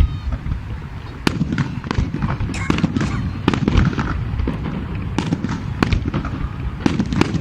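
New Year fireworks display: a quick string of bangs and crackles that starts about a second in and goes on thickly, over a steady low rumble.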